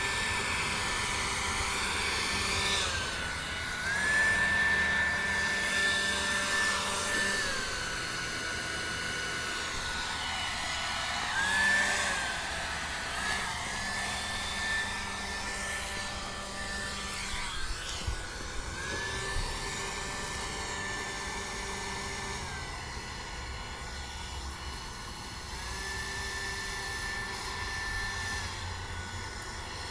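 Cordless electric leaf blower running with a high motor whine and rushing air. Its pitch dips briefly and recovers several times.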